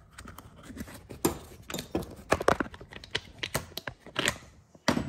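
Irregular light clicks and knocks, several a second and uneven in strength, as tools and parts are handled on a hard tabletop.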